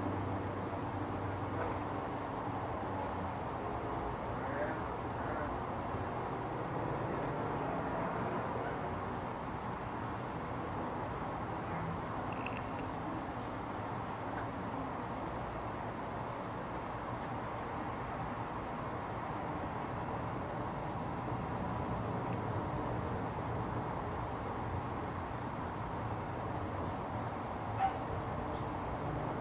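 Steady high-pitched insect trill over a low, even background rumble, with one short click near the end.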